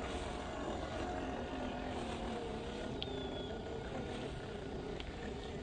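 Electric motor and gearbox of a 1/12-scale MN86KS RC crawler whining as it drives through shallow water, the pitch rising and falling with the throttle.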